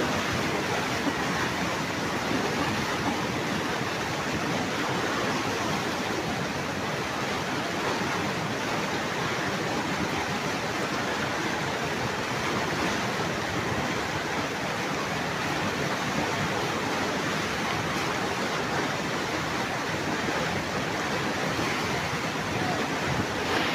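Muddy flash-flood torrent rushing and churning, a steady, unbroken noise of fast-moving floodwater.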